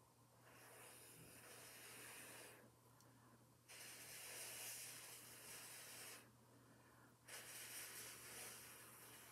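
A person blowing long, steady breaths through the mouth onto wet acrylic pouring paint to push it across the panel. There are three faint, hissing blows of about two seconds each, with short pauses between them.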